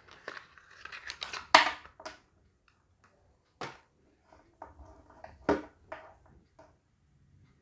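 Handling noises of a small plastic gadget and its packaging: crinkling and rustling with scattered sharp clicks and taps. The loudest crackle comes about one and a half seconds in.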